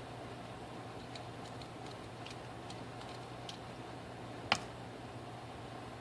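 Light clicks and ticks of small tools working on a smartphone's internal parts during disassembly, with one sharper, louder click about four and a half seconds in. A steady low hum runs underneath.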